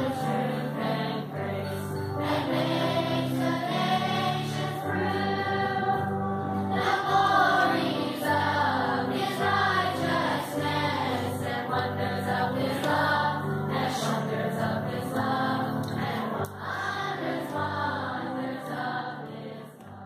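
Children's church choir, with a few adult voices, singing a Christmas carol over held low accompaniment notes; the sound fades away near the end.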